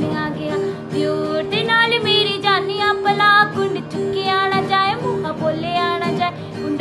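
A woman singing a melody with ornamented, gliding phrases, accompanied by a strummed acoustic guitar.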